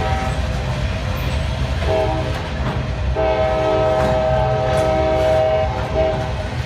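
Freight train cars rolling past with a steady low rumble, while a locomotive horn sounds: a long blast ending just after the start, a short blast about two seconds in, and a long blast of about three seconds from about three seconds in. This long-short-long run is the close of a grade-crossing horn signal.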